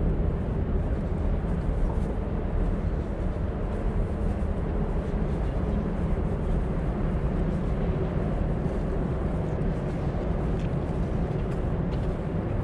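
Steady low rumble of background noise with no distinct events, heaviest in the bass.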